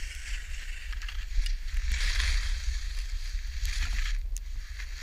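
Skis sliding and scraping over snow, a hiss that swells and eases with a few sharp clicks, with wind rumbling on the microphone.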